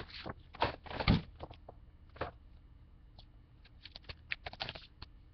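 Handling noise close to the microphone: scattered light clicks and taps, with a heavier thump about a second in.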